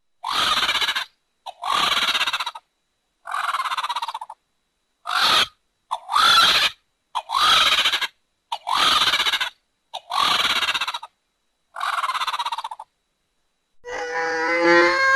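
Sound-designed Quetzalcoatlus pterosaur calls built from warped goose honks and vulture and hawk sounds: about nine harsh honking calls in a row, each under a second long with a quick rattle through it and short gaps between. Near the end comes a longer call with a clearer, wavering pitch.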